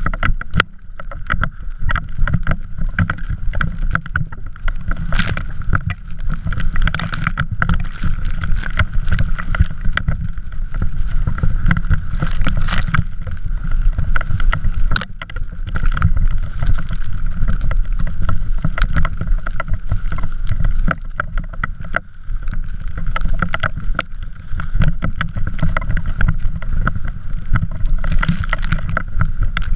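A drift trike riding over snow: heavy wind rumble on the microphone with a steady scraping whir from the wheels, broken by frequent rattles and knocks over bumps.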